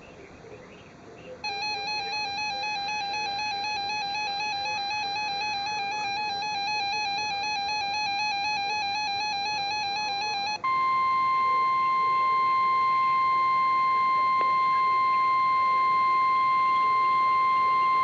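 Weather alert radio (the RadioShack 12-521) going off for a severe thunderstorm warning. About a second and a half in it starts its warbling alert siren. About ten seconds in the siren gives way to the steady single-pitch 1050 Hz Weather Service warning alarm tone, which is held to the end.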